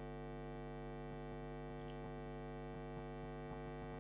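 Steady electrical mains hum with a dense stack of even overtones, with a few faint soft ticks.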